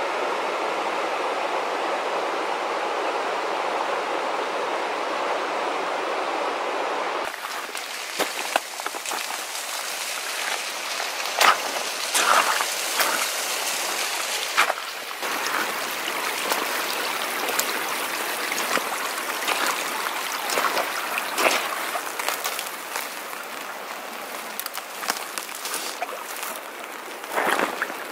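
Steady rush of a rocky creek flowing. About seven seconds in it changes to nearer running water with irregular crunching steps on gravel and wet rock.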